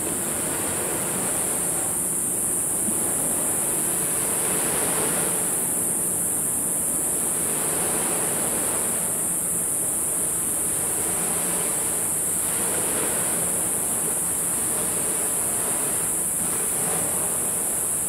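Small waves of the Genkai Sea washing ashore, the surf swelling and easing about every three to four seconds, under a steady high hiss.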